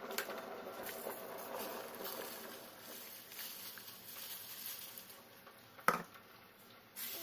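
Milky liquid bubbling and simmering in a stainless-steel pot, with a splashing pour into it about four seconds in. A single sharp knock, the loudest sound, comes about six seconds in.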